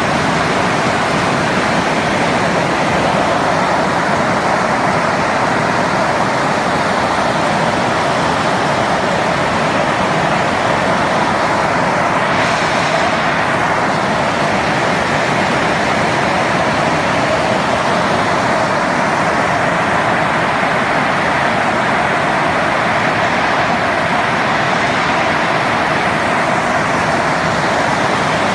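Heavy hailstorm: a dense, steady noise of hailstones and rain falling, with a brief swell about halfway through.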